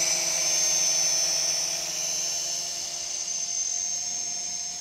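DWI X35 toy quadcopter's propellers and small motors whining in flight, a steady high-pitched buzz that slowly grows quieter.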